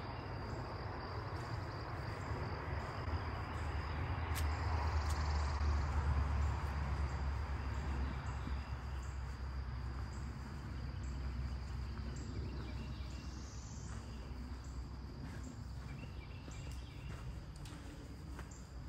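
Outdoor ambience by a wooded lakeshore: insects keep up a steady high-pitched drone over a low wind rumble on the microphone and the rustle of trees. The rumble swells a few seconds in, then eases off.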